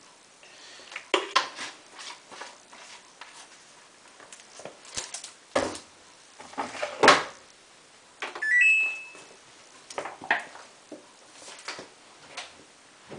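Irregular clicks and knocks of the Samsung WF8804RPA washing machine's detergent drawer and bottles being handled, the loudest knock about seven seconds in. About a second later the machine's control panel gives a short stepped electronic beep.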